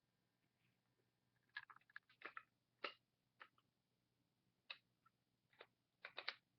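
Faint, scattered clicks and rustles of trading cards being handled, with a few short sharp ticks, the closest bunched together near the end.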